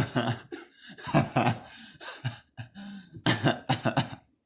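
A man's voice coughing and laughing in short bursts.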